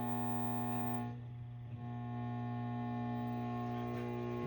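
Steady electrical hum and buzz from a guitar pedal and amplifier rig with no playing, strongest at a low mains-hum pitch with a stack of higher buzzing tones. The upper buzz drops out briefly about a second in, then comes back.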